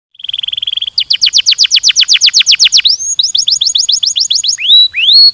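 Domestic canary singing: a fast buzzy trill, then a long run of rapid falling whistled notes, a second quicker run, and rising slurred notes near the end.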